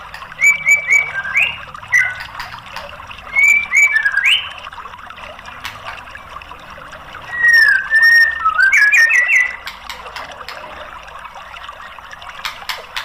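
White-rumped shama singing: several short bursts of loud, clear whistled notes with quick upward-sweeping slurs, a few seconds apart, over a steady hiss.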